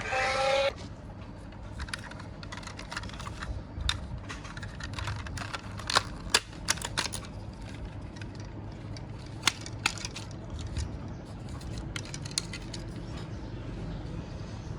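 Irregular small sharp clicks and taps of a plastic Transformers action figure being handled, its parts moved, over a low steady hum. A music passage cuts off about half a second in.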